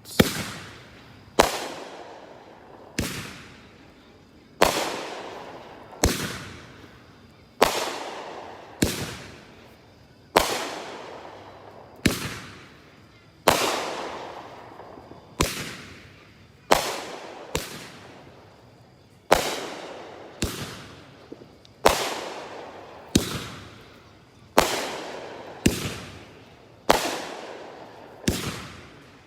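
Brothers 'Wind Up' consumer fireworks cake firing a steady string of shots: about twenty sharp bangs, roughly one every second and a half, each trailing off before the next.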